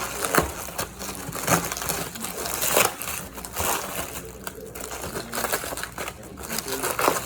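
Packaging being crinkled and rustled by hand as a wrapped item is unwrapped, in irregular crackling bursts.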